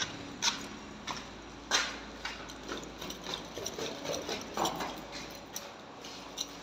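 Footsteps scuffing on concrete steps: a string of irregular sharp clicks and scrapes about twice a second.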